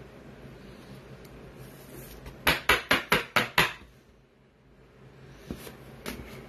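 A clear plastic card holder knocked against a wooden tabletop about seven times in quick succession, tapping the trading card down into the holder. A few faint handling clicks follow near the end.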